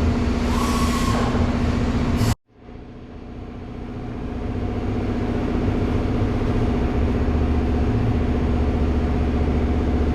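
Steady low mechanical hum like an idling engine, with one steady droning tone. About two and a half seconds in it cuts out completely for a moment, then fades back in and runs steadily again.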